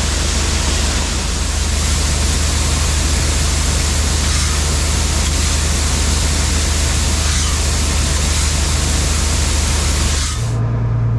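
Farm machinery running steadily, heard from inside the cab: a low engine hum under a loud, even hiss. A little after ten seconds the hiss drops away and the engine note steps higher.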